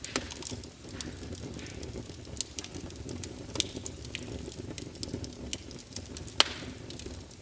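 Wood log fire burning with a steady low hiss and irregular sharp crackles and pops, the loudest pop about six and a half seconds in.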